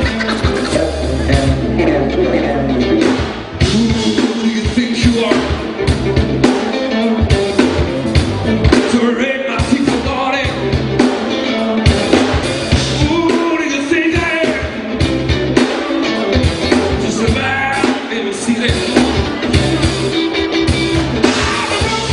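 A live band playing a blues-rock number, with drum kit, bass, guitar and keyboard.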